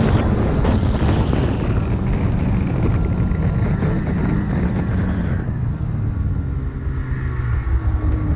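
Snowmobile engine running under way with track and wind noise. It eases off about five seconds in as the sled slows, settling to a lower, quieter idle.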